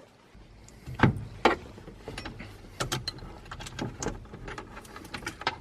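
Hand tools working on the bolts of a Toyota MR2 gear shifter assembly: a string of irregular metal clicks and knocks, the loudest about a second in.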